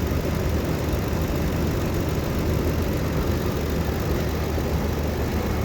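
Ford car engine idling steadily with the AC compressor running during an R134a refrigerant recharge.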